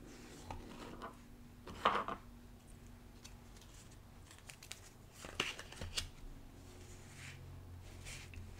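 Long fingernails tapping and scratching on a small cardboard card box, with a loud rasping scrape about two seconds in and a few sharp taps around the middle. Near the end, soft paper rustles as the cards are slid out and spread on the desk.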